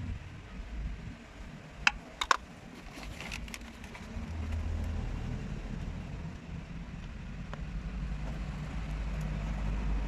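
Metal tools clinking, two sharp clinks about two seconds in and a few lighter ones just after, over a steady low rumble like road vehicles running.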